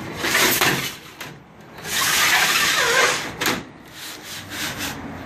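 Sheets of galvanized steel sliding and scraping over one another on a workbench. There are two long scrapes, the second lasting about a second, then a short sharp scrape and a few lighter scuffs.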